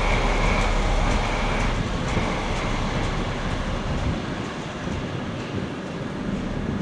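DB Class 212 (V 100) diesel-hydraulic locomotive running light and moving away, its diesel engine and wheels on the rails growing gradually fainter. A high steady whine fades out about two seconds in.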